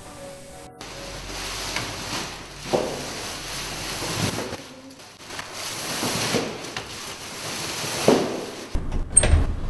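Brief music, then a steady rustling, scraping noise with dull thumps about every one and a half seconds, as something is dragged and bumped step by step down stone stairs.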